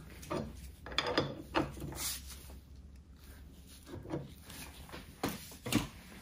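An old wooden-handled wrench clinking and knocking against the nut and collar of a Multifix lathe tool post as the nut is snugged down and the wrench lifted off. It comes as about eight scattered knocks, bunched around the first and second seconds and again near the end.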